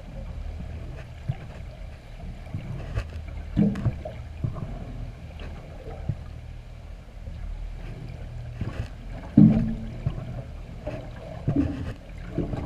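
Underwater ambience recorded by a submerged GoPro: a steady low rumble with irregular knocks and thumps, the loudest about nine seconds in.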